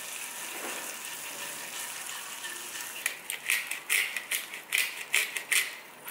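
Butter sizzling and foaming in a hot frying pan, with a steady hiss. From about three seconds in, a black-pepper grinder is twisted over the pan in about ten quick, loud grinding clicks.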